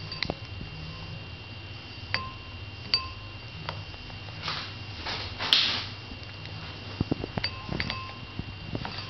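A hen pecking food from a ceramic bowl: sharp taps of the beak against the bowl, several of which set it ringing briefly like a small chime, among softer pecks. Two short rustling swells come about halfway through.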